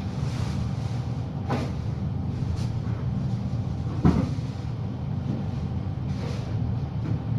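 A steady low hum, with a few brief knocks and scuffs; the loudest knock comes about four seconds in.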